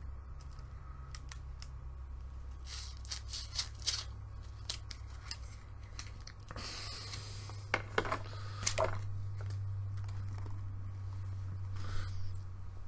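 Scattered small clicks and short rustles over a steady low hum.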